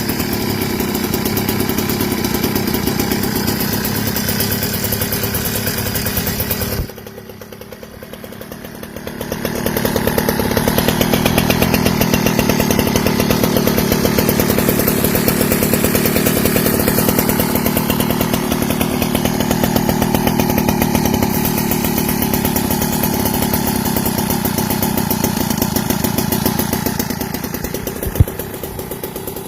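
Small two-stroke Goped engine breathing through an aftermarket expansion-chamber pipe, revved high, dropping back to a low idle about seven seconds in, then revved up again and held before easing off near the end. A single sharp click near the end.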